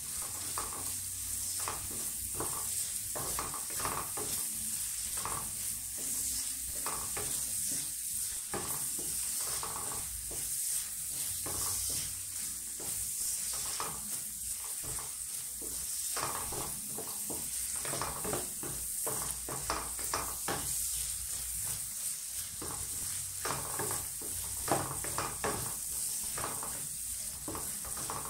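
Sliced onions sizzling in a hot wok, with a steady hiss, while a wooden spatula stirs them and scrapes the pan in repeated strokes about once or twice a second.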